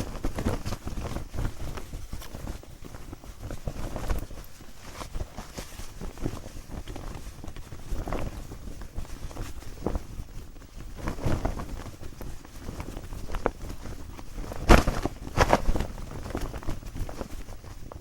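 Clothing foley: cloth rustling and swishing in irregular strokes, with two sharper, louder flaps of fabric about three quarters of the way through.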